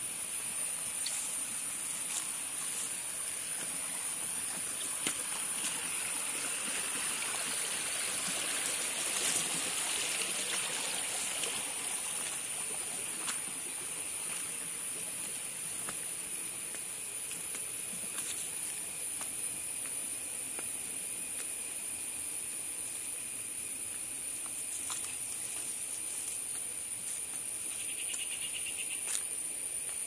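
Steady high-pitched drone of insects over the rushing trickle of a small rocky forest stream; the water is loudest for a few seconds around the middle. Occasional light clicks, and a short rapid trill near the end.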